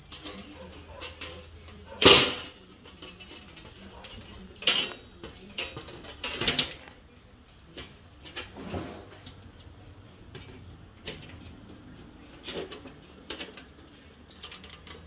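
Thin sheet-steel strips and a small wing-nut panel clamp being handled on a perforated steel welding table: scattered metallic clanks, taps and scrapes, the loudest about two seconds in.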